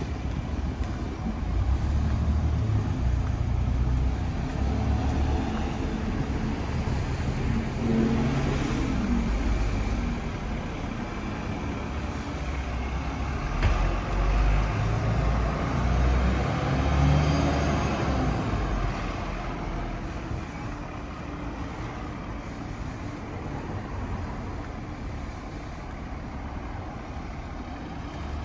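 Road traffic: motor vehicles running and passing, a steady low rumble that swells twice, from about 2 to 10 seconds in and again from about 14 to 18 seconds in.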